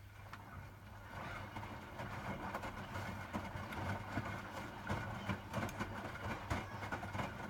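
Hotpoint WMFUG 942 washing machine drum tumbling its load: a steady motor hum with irregular clunks and rattles, growing louder about a second in.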